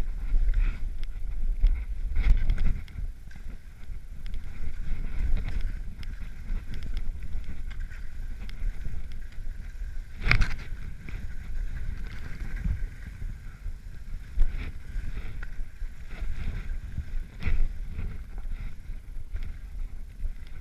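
Muffled, rumbling noise of movement through snow and air on a body-worn GoPro Hero3, rising and falling unevenly, with one sharp knock about halfway through.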